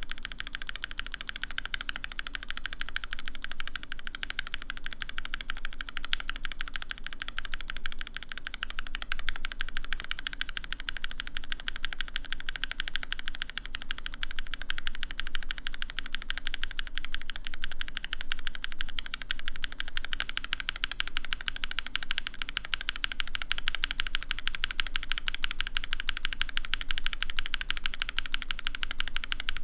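Fast, continuous typing on a mechanical keyboard fitted with linear switches, in a gasket-mounted Mode Eighty case with an aluminium plate: a dense stream of keystroke clacks with no pauses.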